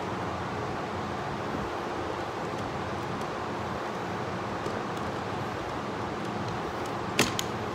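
A steady machine hum with a low drone runs throughout. Near the end come two sharp metallic clanks in quick succession, the first the louder, from a steel floor-conveyor chain being handled at a bench vise.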